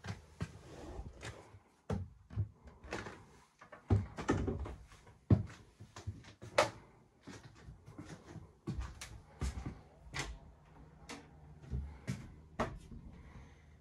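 Irregular knocks, clicks and thumps of someone moving about a sailing yacht's small wooden cabin, opening and closing cabin doors and cupboards.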